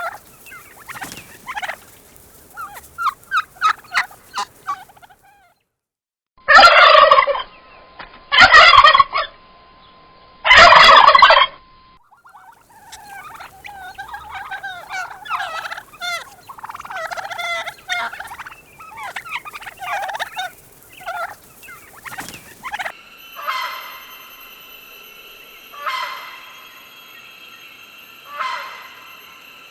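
Turkeys gobbling in a run of separate clips: three very loud gobbles about two seconds apart near the middle, then a stretch of quicker chattering calls, then single calls every two to three seconds over a steady background tone.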